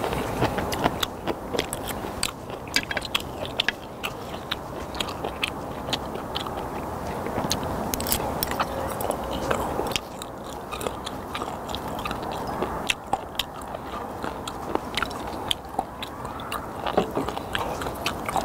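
Close-miked chewing and crunching of sliced raw skate with kimchi, with many sharp mouth clicks and smacks. Soju is poured from the bottle into a shot glass about halfway through.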